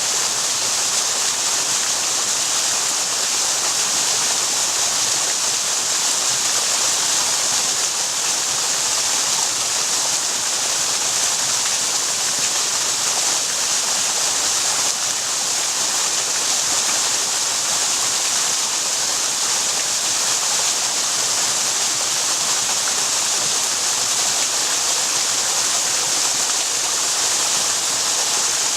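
Waterfall: a steady, unbroken rush of falling water with a bright hiss, no change in level.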